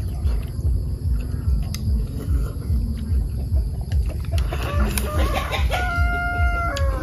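A rooster crowing in the second half: a held note that drops in pitch at the end, over steady wind rumble on the microphone.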